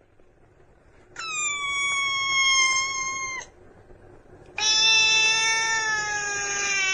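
Cat meowing: two long, drawn-out meows, the first higher and held steady after a quick rise, the second lower and slowly falling in pitch.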